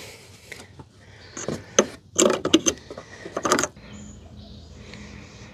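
Clicks and short rattles of plastic fuel-line fittings being handled and pulled off the fuel pump's top, bunched in a run between about one and a half and three and a half seconds in.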